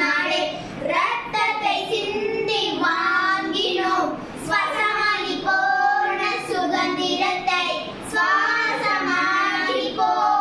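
Three young girls singing a song together into a handheld microphone, in phrases with short breaths between them.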